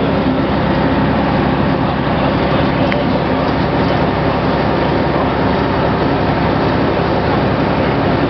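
Ikarus-Zemun IK160P bus under way at a steady speed, heard from inside: its diesel engine running steadily under road and cabin noise.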